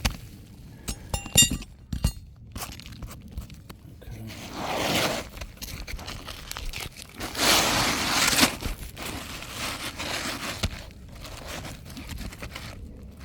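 Asphalt roof shingles being worked loose by hand: crunching, scraping and tearing. There are a few sharp clicks in the first two seconds and two longer rasping swells around five and eight seconds in.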